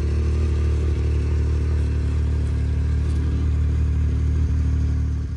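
Can-Am Maverick X3 side-by-side engine running at a steady, even speed.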